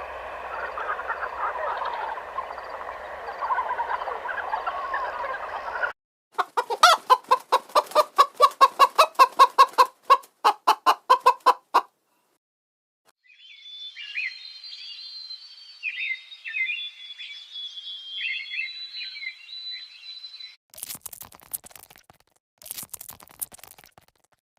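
A run of short animal-sound clips. The loudest is a fast, rhythmic series of chicken clucks of about six seconds. After it come high, chirping bird calls and a few scratchy bursts.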